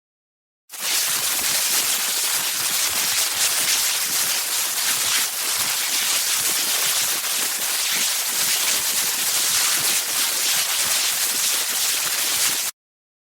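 Electrical crackling effect: a dense, steady crackling hiss like continuous sparking or static, strongest in the high range. It starts about a second in and cuts off abruptly just before the end.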